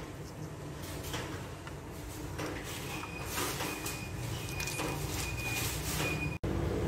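Handling noises on a kitchen counter: cheese slices pushed across a plastic tray and a plastic cheese packet picked up, short rubs and rustles over a low steady hum. The sound drops out for a moment near the end.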